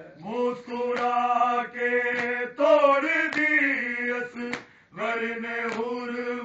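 Male voices chanting a noha, an Urdu lament for Imam Husain, in long held notes, with sharp chest-beating (matam) strikes about twice a second. The voices break off briefly about five seconds in.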